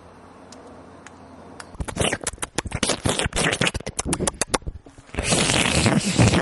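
Faint noise with a few clicks, then about two seconds in a dense, rapid crackling and scraping. Near the end this gives way to a louder, continuous rough noise.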